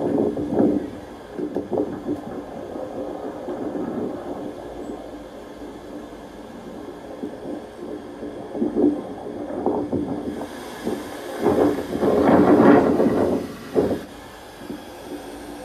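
Gusts of wind buffeting the microphone: an uneven rumble that surges and falls, with the strongest gust about twelve seconds in.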